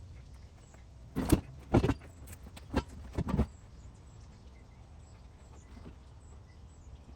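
A handful of short knocks and clunks, one after another over about two seconds, then only a low steady background rumble.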